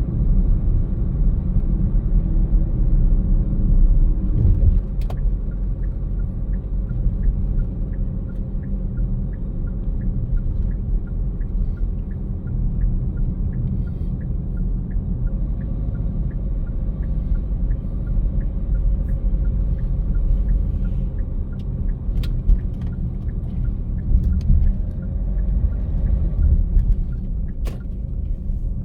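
Car driving on city streets: a steady low rumble of road and engine noise. A regular light ticking runs through the middle stretch, and a few sharp clicks come late on.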